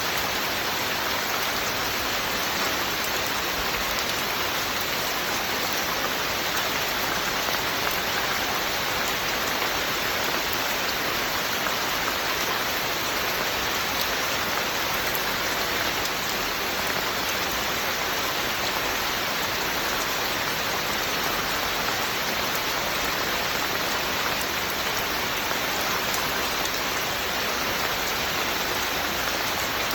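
Steady rain falling, an even, unbroken hiss of drops on surfaces.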